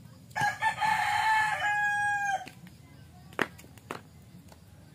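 A rooster crowing once: a call of about two seconds that starts in short broken notes and ends in one long held note. Two sharp clicks follow a little later.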